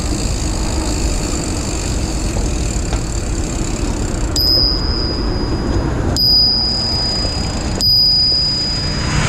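Bicycle bell rung three times from about the middle on, roughly every second and a half, each a single bright ding that rings on, to warn pedestrians walking ahead on the path. Under it, a steady rumble of wind and tyres from the moving bike.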